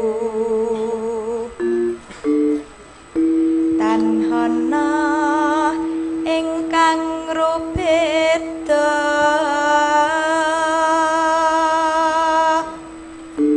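A sinden, a female Javanese singer, sings a slow, drawn-out song line into a microphone with strong vibrato, over steady held notes from the accompaniment. The voice breaks off briefly early on and again near the end.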